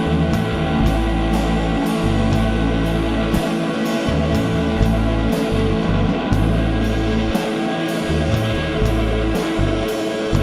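Rock music with guitar, a steady beat and a bass line.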